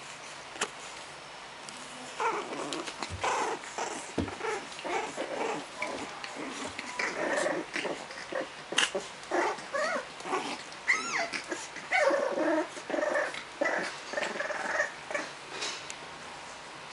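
A litter of French bulldog puppies play-fighting, making many short, squeaky growls, yips and whimpers that start about two seconds in and die away near the end.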